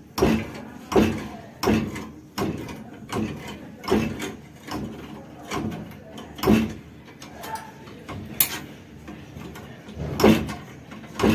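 Hand-operated ring-bending machine being worked stroke by stroke as a steel reinforcing bar is bent into a round coil. Its handle and rollers give a sharp metallic clank roughly once a second, with one longer pause near the end.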